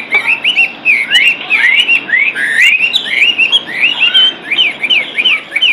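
White-rumped shama (murai batu) singing in full, continuous song: a fast run of short, clear whistled notes, many sliding quickly up or down in pitch.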